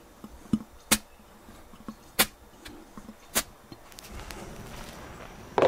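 Automotive A/C compressor being turned over and handled by hand, with freshly added ester oil inside: three sharp clicks about a second and a quarter apart, with small knocks between. From about four seconds in there is a soft rustle of handling.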